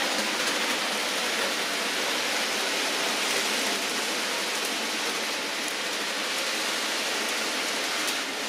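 Model HST train running along the track: a steady rushing hiss from its wheels and motor, with a few faint ticks.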